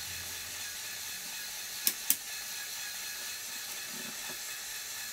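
LEGO Technic Power Functions electric motor whirring steadily through the plastic gear train as it drives the model's crane, with two sharp plastic clicks close together about two seconds in.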